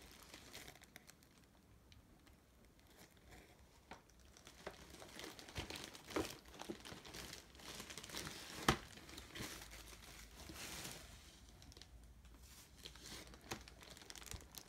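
Packing material and paper crinkling and rustling as they are handled in a cardboard shipping box, irregular and fairly faint, with a few sharp clicks, the loudest a little past halfway.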